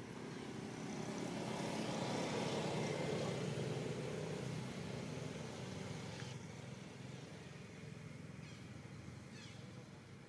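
A vehicle passing by: a steady rushing noise that swells over a couple of seconds and then fades away.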